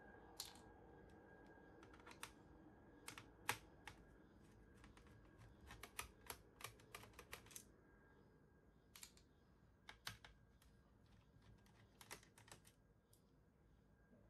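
Faint, irregular small clicks and taps of hands working inside an opened laptop, fitting a part into place, with a quick run of clicks around the middle.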